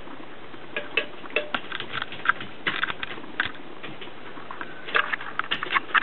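A kitten sucking and chewing on a person's hand: quick irregular smacking clicks in clusters over a steady hiss.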